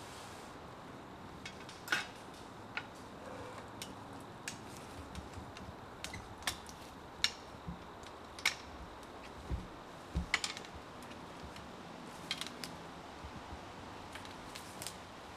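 Scattered metallic clicks and clanks of a hang-on tree stand and strapped climbing sticks as a hunter climbs down them, with a couple of dull thumps about two-thirds of the way through.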